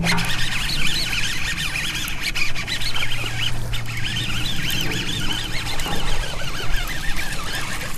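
Many birds chirping and calling at once, a dense chorus of quick, high wavering calls.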